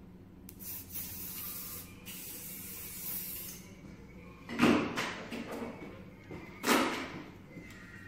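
Aerosol hairspray can spraying in two long hisses over about three seconds. About a second later come two louder short knocks, roughly two seconds apart.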